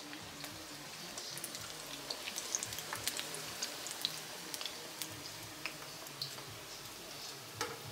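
Battered cauliflower pieces frying in hot oil in a wok: a steady sizzle with scattered small crackles and pops. The pieces are done frying and ready to come out.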